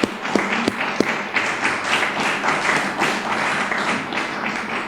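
Audience applauding: many hands clapping in a dense patter that dies away at the end.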